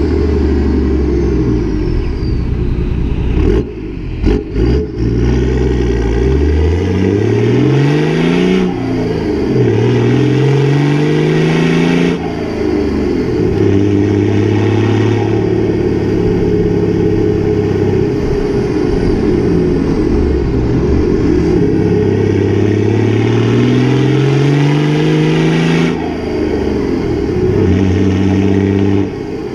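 Toyota 1HD-FTE 4.2-litre inline-six turbo-diesel with no mufflers, on a straight-through 3-inch exhaust, pulling under load. It climbs steadily in pitch as it accelerates, then drops back sharply at each gear change, several times over.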